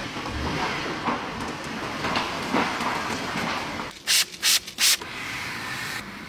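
Three quick, loud hisses from a spray bottle misting cleaner onto a car's armrest, about four seconds in, with a hand rubbing and scrubbing at the upholstery before and after.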